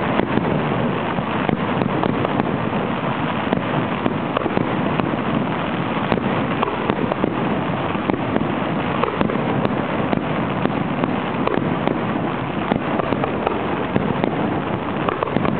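Fireworks display: a dense, continuous run of many small pops and crackles, with no let-up.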